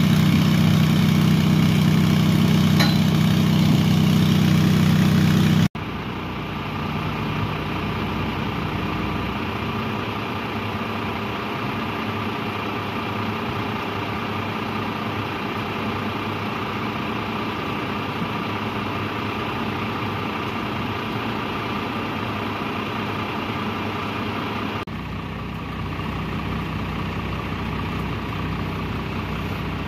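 Portable engine-driven water pumps running with a loud, steady drone, cut off abruptly about six seconds in. After the cut, a MAN fire engine's diesel idles steadily.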